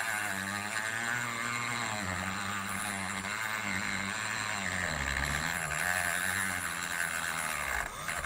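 Dremel rotary tool running under load as it cuts away an aluminium wiper arm corroded solid onto its brass spindle, the motor's pitch wavering as the cut bites and eases, with a grinding hiss over it. It cuts off abruptly near the end.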